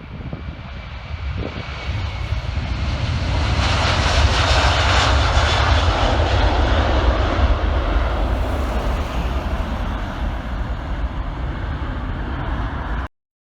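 Twin-engine Airbus A330 jet airliner at takeoff power, a deep rumble and roar that swells to a peak as it passes, then slowly fades. The sound cuts off abruptly near the end.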